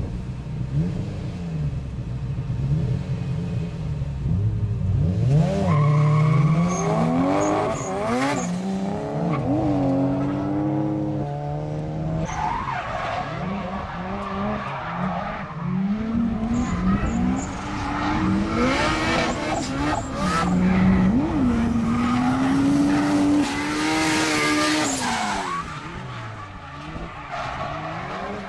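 Two drift cars' engines revving hard, their notes swooping up and down again and again as the drivers work the throttle through the slides. Tyres hiss and squeal as they skid. The engines are faint for the first few seconds, then come in loud from about five seconds in.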